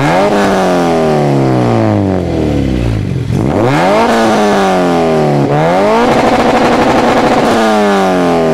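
Honda K20 four-cylinder engine of a Honda Integra being free-revved: three blips, each climbing quickly and falling back slowly, the third held at high revs for about a second and a half before dropping.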